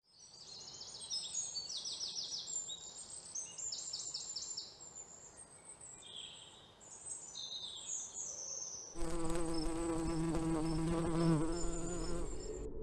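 Insects chirping in repeated high, rapid trills. About nine seconds in, slow ambient music with sustained low tones comes in over them.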